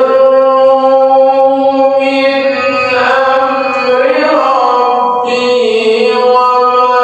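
A man's voice in melodic Quran recitation (tilawah), holding one long drawn-out note, with small turns of pitch in the second half.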